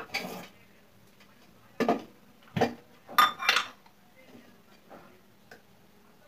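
A steel spoon clattering against a small stainless-steel pot and a steel mixing bowl, a few separate knocks and clinks in the first four seconds, the loudest a little past three seconds in, then a few faint ticks.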